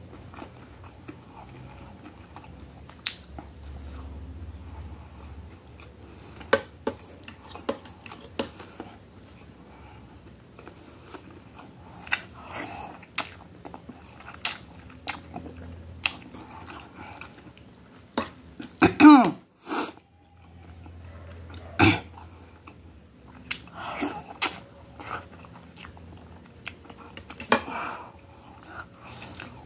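Close-up mouth sounds of eating instant noodles and a breaded chicken cutlet: chewing and biting with wet mouth clicks. About 19 seconds in there is a short, loud throat sound, and fainter ones follow near 22 and 27 seconds.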